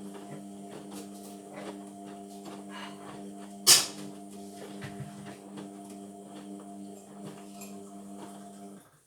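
Indesit washing machine's drum motor humming steadily as the drum turns in the wash phase, with small knocks from the load tumbling. One sharp knock comes a little before halfway, and the motor stops shortly before the end as the drum pauses between turns.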